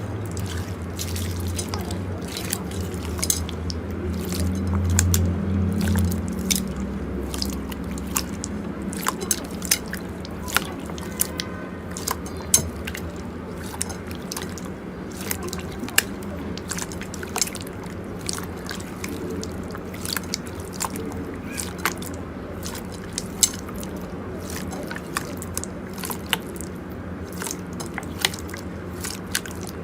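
Slime being handled, giving an irregular run of small wet pops and clicks, several a second, over a low steady hum.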